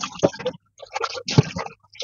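Dishes being hand-washed at a stainless steel kitchen sink: broken splashing and scrubbing sounds, with two sharp knocks of dishware against the sink, one just after the start and one a little past the middle.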